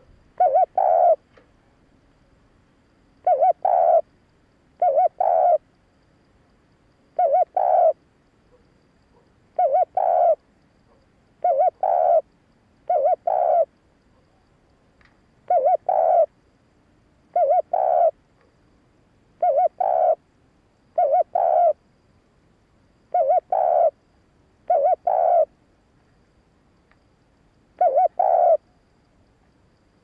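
Spotted dove cooing: about fourteen short two-note coos, repeated every one to three seconds with brief pauses between.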